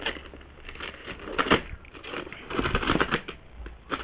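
Plastic packaging and bubble wrap crinkling and rustling as items are handled and pulled from a package, in irregular crackles that are busiest about a second and a half in and again in the second half.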